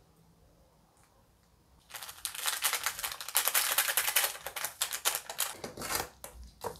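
Plastic seasoning sachet crinkling and crackling as it is handled and shaken over a plate of noodles, starting about two seconds in and lasting about four seconds. Near the end a few knocks as wooden chopsticks stir the noodles in an enamel plate.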